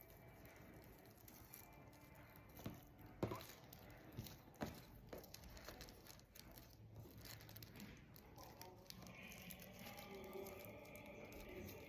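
Near silence: room tone with a few faint taps and crinkles of hand work, four or so in the first half.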